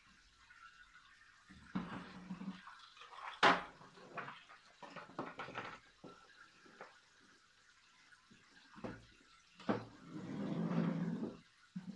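Wooden drawer trays and a wooden cabinet case being handled on a wooden table: scattered light knocks and scrapes, one sharp wooden knock about three and a half seconds in, and a longer scrape near the end.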